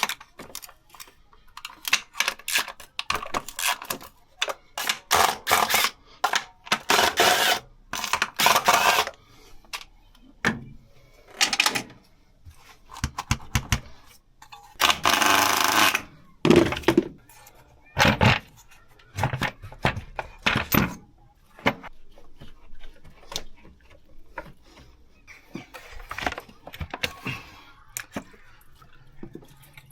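Irregular clinks, knocks and rattles of hand tools and metal parts being handled during work on the engine, with a denser burst of clatter about halfway through.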